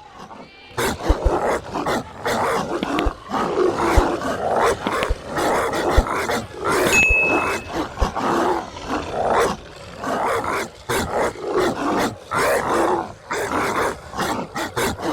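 Dog growling and barking over and over, starting about a second in, with short breaks between.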